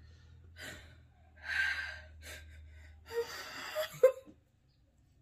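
Stifled, breathy laughter and gasps in several short bursts, the loudest about four seconds in.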